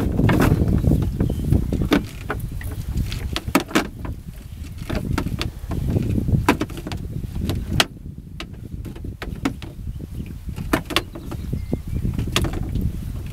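Many scattered sharp clicks and light knocks as a monofilament double-funnel fyke net and its round hoops are handled and pulled over a plastic crate, over a low uneven rumble.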